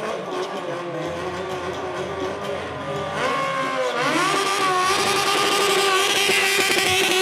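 Stunt motorcycle engine revving: the pitch climbs sharply about three seconds in and again about a second later, then holds at high revs with a hissing rush over it.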